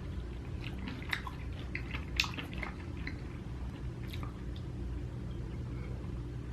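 Close-miked chewing of food: wet mouth sounds and small clicks, busiest in the first four seconds and then sparser, over a steady low hum.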